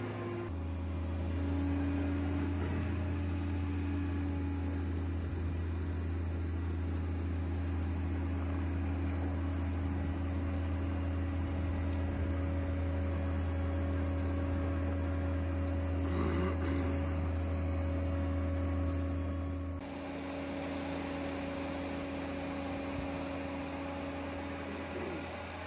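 Steady low machine hum, like an engine running at constant speed, holding the same pitch throughout. Its tone changes abruptly about twenty seconds in, and a brief separate sound comes a few seconds before that.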